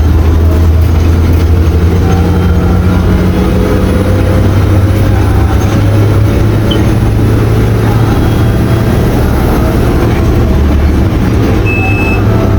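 The six-cylinder MWM 6.10 TCA engine of a Volkswagen 17-210OD city bus, converted to run on natural gas, running under way with a steady low drone; its pitch climbs gently a couple of seconds in, as the bus gathers speed.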